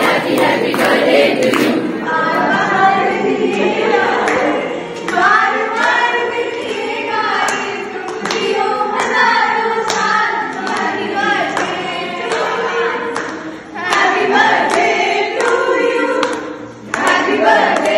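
A group of students singing together in chorus, clapping along as they sing.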